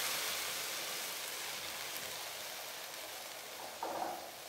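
Tamarind water sizzling in the hot sesame-oil tempering in a wok just after it was poured in, a hiss that fades steadily as the liquid settles into a simmer.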